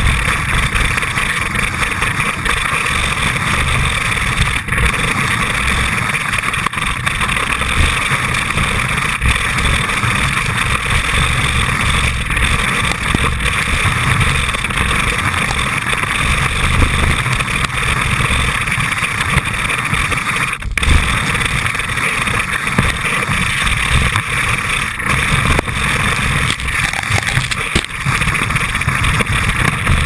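Fischer skis running through snow, heard from a camera mounted on the ski: a loud, steady rushing hiss of snow and wind over an uneven low rumble.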